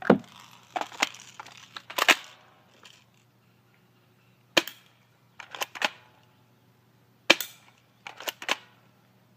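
Spring-powered airsoft gun shooting: a sharp snap every two to three seconds, with lighter clacks in between as it is cocked or the BBs strike the targets.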